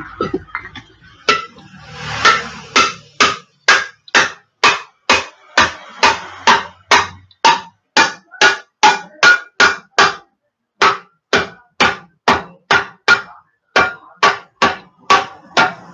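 Steady hammering, about two blows a second, each knock ringing briefly: a hammer striking a wooden block held against a pressure cooker to flatten its bulged, rounded bottom. The blows pause briefly about ten seconds in, then carry on.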